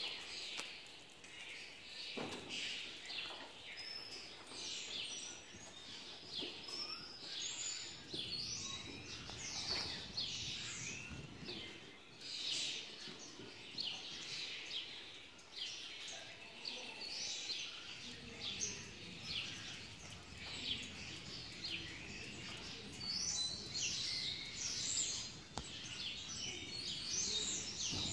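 Small birds chirping and twittering without a break, a dense run of short, quick calls that slide downward in pitch.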